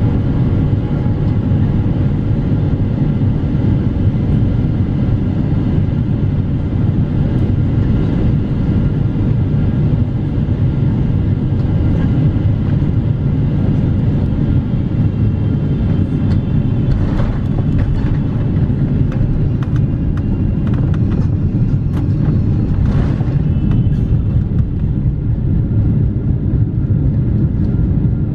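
Cabin noise on a Boeing 777-300ER: a steady low rumble of engines and airflow with faint steady whining tones above it. A few brief rattles come after the middle.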